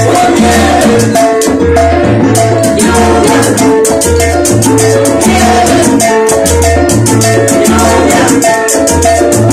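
Live charanga band playing salsa, loud and steady: a repeating bass line, congas and regular high hand-percussion strokes under the singers.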